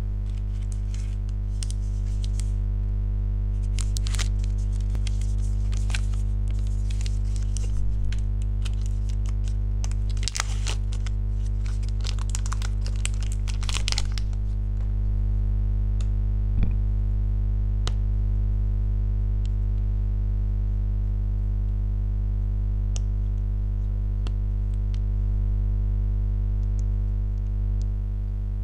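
Plastic sweet wrappers crinkling and tearing open in hand, in bursts during the first half and only scattered small crackles later, over a steady low hum.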